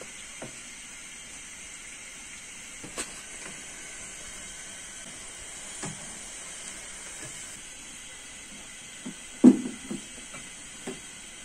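Water-yam akara fritters frying in a pan of hot oil: a steady sizzle, with a few light clicks and a louder knock near the end.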